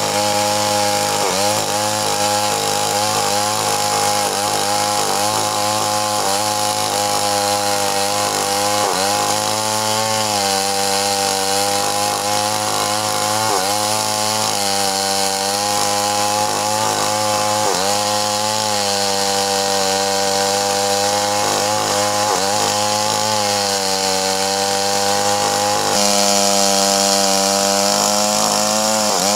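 Stihl MS 381 two-stroke chainsaw running at high revs as it rips lengthwise through a red meranti log. The engine note sags briefly under load again and again, then climbs back.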